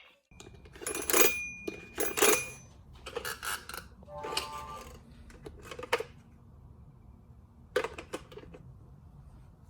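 Hard plastic toy parts knocking and clattering: a handful of sharp, irregular knocks, the loudest two about a second apart near the start, with some ringing after a few of them.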